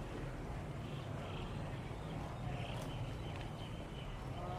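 Outdoor ambience of a seaside town: a steady low rumble with faint distant voices and soft high sounds now and then.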